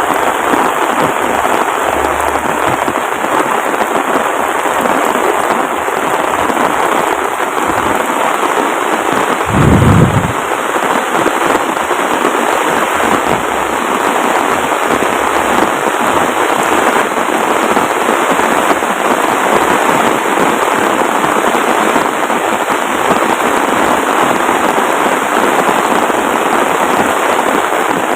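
Heavy rain pouring steadily, a dense, even patter of rain falling on surfaces. About a third of the way through there is one short, louder low thump.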